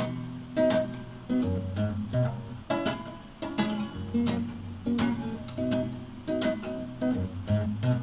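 Acoustic guitar strummed in a steady rhythm, an instrumental stretch between sung lines, with sharp chord strokes and ringing notes between them.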